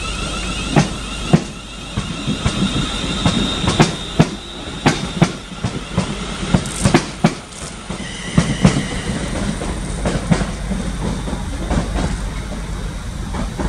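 ScotRail electric multiple-unit train running through the station throat, its wheels clacking irregularly over rail joints and points above a steady low rumble. Brief high wheel squeals come at about three seconds and again at about eight seconds in.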